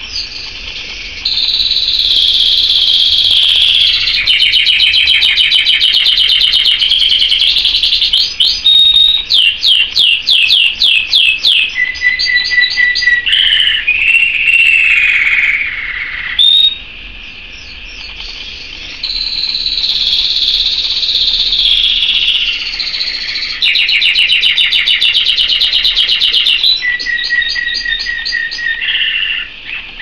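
Domestic canary singing: long rolling trills and runs of fast repeated high notes. There is a short lull a little past halfway, then the same run of trills starts again.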